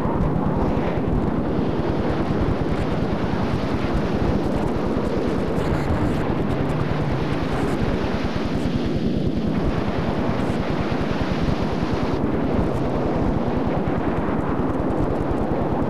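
Steady rushing noise of large ocean waves breaking, a continuous surf sound with a deep rumble underneath.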